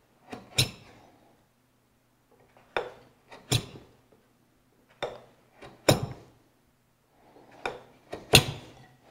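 Marking knife drawn along the blade of a steel square, scoring a shoulder line into a wooden tenon: about seven short scratchy strokes, loosely in pairs with quiet between, each pass cutting the score line deeper.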